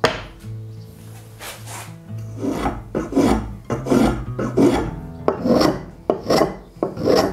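Short scraping strokes against wenge wood, about eight of them in an uneven rhythm, with a sharp knock at the start; soft background music underneath.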